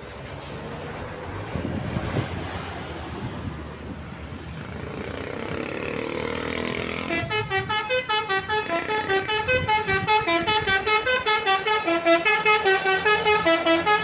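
A bus approaching, its engine and tyre sound growing louder. About seven seconds in, its Basuri telolet horn starts playing a fast, choppy melody of short stepped notes, about three to four a second.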